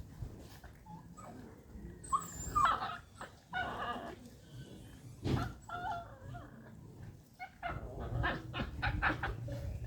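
Dogs making short, high, scattered vocal sounds while playing, with a few sharp noises between them.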